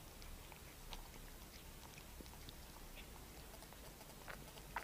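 Faint wet mouth sounds of a kitten and mother cat at close range: scattered small clicks and smacks, with a couple of louder ones near the end.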